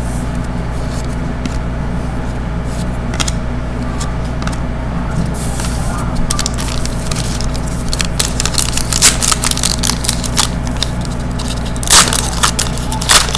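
Hockey trading cards being handled, with scattered clicks and rustles as the cards are flipped through and sorted. The handling gets busier about halfway through and again near the end, over a steady low hum.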